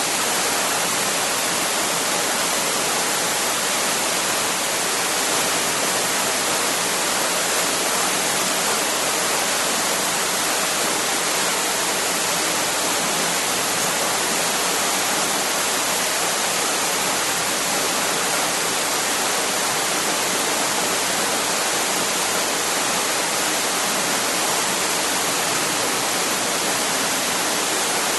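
Waterfall: a steady, unbroken rush of falling water, strongest in the high hiss, with no other sounds.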